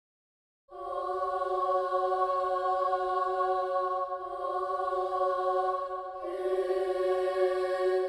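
Sampled children's choir from UVI Orchestral Suite's Children's Choir patch, holding a sustained chord of voices that starts about a second in. It moves to another chord about six seconds in.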